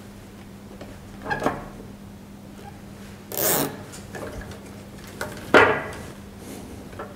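Nylon cable ties being pulled through their locks, giving short ratcheting rasps about a second in and a longer one at about three and a half seconds. A louder knock and rattle of the plastic trunk being handled follows at about five and a half seconds, with a few light clicks after it.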